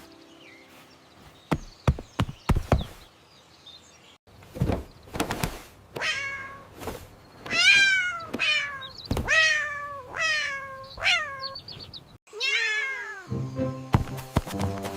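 A cat meowing over and over, a string of short meows that each fall in pitch, starting about six seconds in, after a few sharp knocks in the first seconds.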